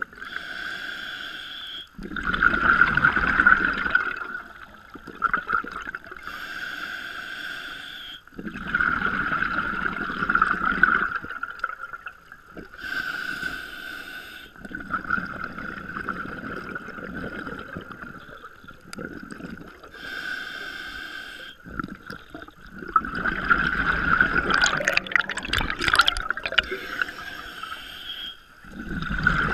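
Scuba diver breathing underwater through a regulator: a hissing inhale followed by a longer bubbling exhale, repeated about every six to seven seconds, about five breaths in all.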